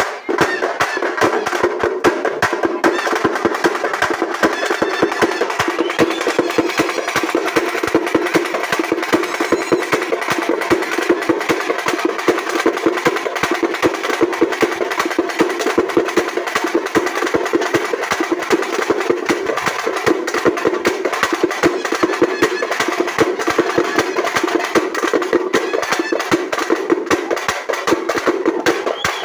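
Drums beaten in a fast, unbroken rhythm of rapid strikes.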